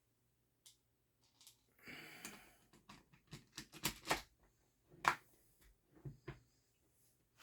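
Parts of a .50 cal air revolver being handled and fitted together: a brief rustle about two seconds in, then a string of sharp clicks and knocks.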